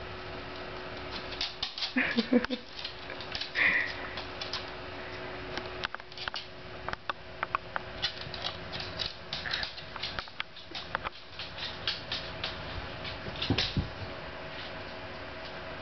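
A small puppy's claws clicking and tapping irregularly on a hard wood-look floor as it toddles about. A couple of short squeaks come about two to four seconds in, over a faint steady hum.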